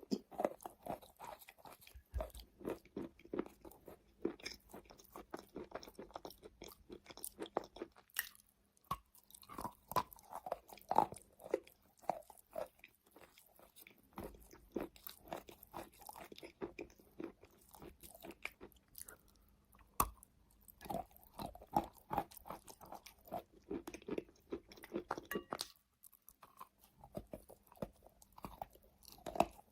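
Wet chalk being bitten and chewed close to the microphone: a dense, irregular run of soft, crisp crunches and crackles, with a couple of brief lulls.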